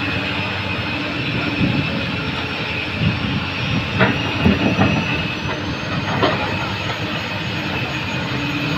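Komatsu PC200 excavator's diesel engine running steadily under working load, with a few metallic clanks about four to five seconds in and once more about six seconds in.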